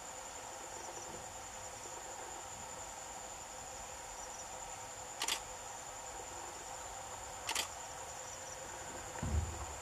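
Steady chorus of crickets or similar insects: an even, unbroken high trill over a lower steady hum. Two short sharp clicks come about two seconds apart in the middle, and a low bump sounds near the end.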